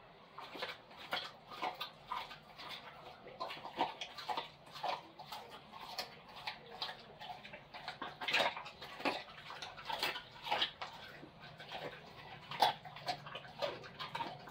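Pit bull eating chicken: irregular chewing clicks and smacks, several a second, with a few louder ones.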